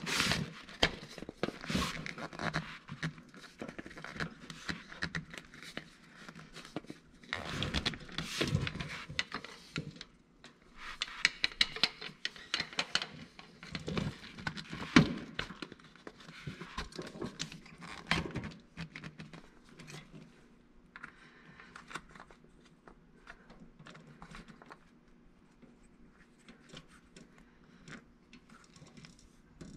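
Hands working a Bennett trim tab actuator and its hose clamp on a paper towel: an irregular run of scrapes, clicks and rustling from tools and parts, with one sharper knock about halfway through.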